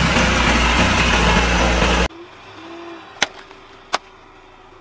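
Car engine running loud and close, with tyre noise, for about two seconds, then it cuts off. In the quieter stretch that follows, two sharp cracks come less than a second apart as a car tyre crushes something on the asphalt.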